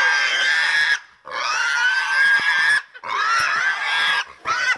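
Pig squealing: three long, high squeals of about a second each, then a short one near the end.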